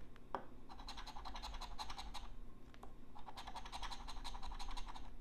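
A scratch-off lottery ticket being scratched with a handheld tool: two spells of rapid back-and-forth scraping strokes, with a single click just before the first.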